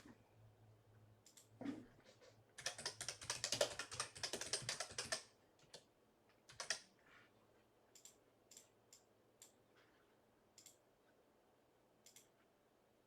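Computer keyboard typing, faint: a quick run of keystrokes lasting about three seconds, followed by scattered single key clicks.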